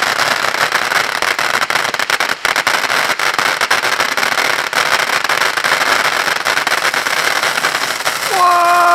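Lighthouse fountain firework burning: a steady spraying hiss full of fast crackles. Near the end a person lets out a drawn-out "whoa".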